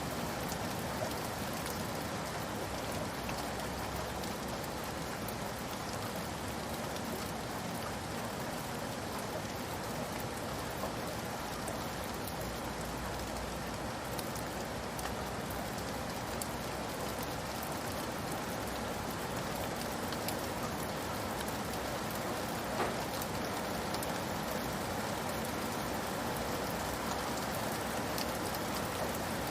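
Steady rain pattering on a roof, an even hiss of rainfall with scattered single drop ticks.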